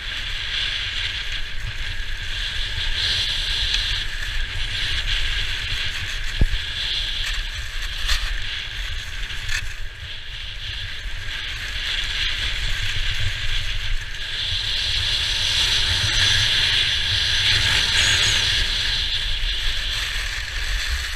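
Skis sliding and scraping over packed snow on a downhill run, the hiss swelling and easing as the skier goes, with wind buffeting the microphone as a low rumble. A single sharp knock about six seconds in.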